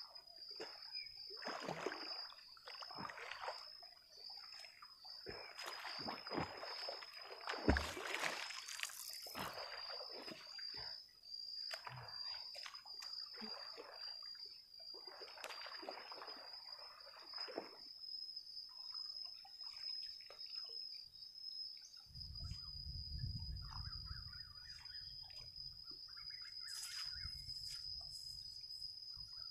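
Irregular water splashing and sloshing as a person wades chest-deep in a river, handling a cast net. The splashes come in bursts over the first half, the biggest a little past a quarter of the way in. A thin, steady high-pitched tone runs underneath, and a low rumble comes in for the last several seconds.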